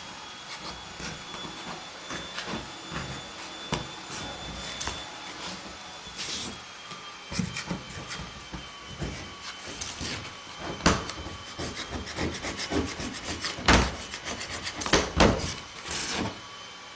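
Hand-held metal paint scraper scraping peeling layers of later paint off the steel roof of a 1972 Volkswagen Type 3. It goes in a run of short, uneven rasping strokes, with a few sharper, louder scrapes in the second half.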